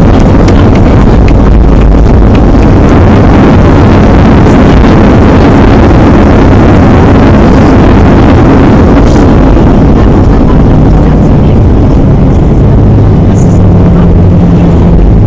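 Airliner cabin noise during the landing rollout: the engines and rushing air are loud and steady, thinning out from about nine seconds in as the plane slows on the runway, with a low steady hum coming in near the end.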